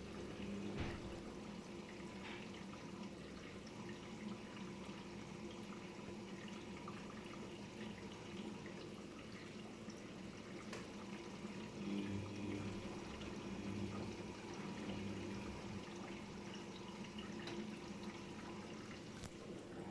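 Daewoo DWD-FT1013 front-loading washing machine with water pouring and sloshing inside, over a steady low hum.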